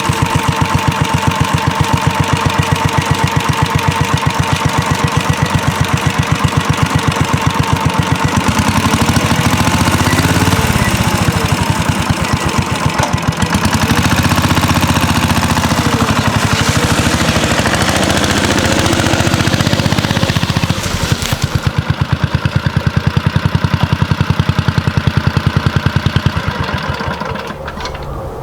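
Cushman Trailster scooter's single-cylinder engine running with a steady, even firing beat. It works harder and louder for a stretch in the middle while skidding a log, then settles back and shuts off near the end.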